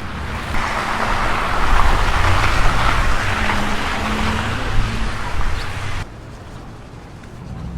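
Street traffic: a motor vehicle passing close, its engine hum under a broad hiss of tyres, swelling then dropping off suddenly about six seconds in.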